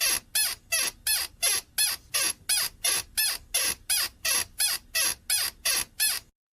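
Rhythmic squeaking: short squeaks repeated evenly about three times a second, stopping near the end.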